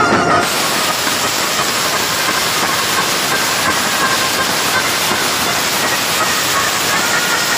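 Loud, steady hissing noise that starts about half a second in and drowns out the band's music, which stays faintly audible beneath it.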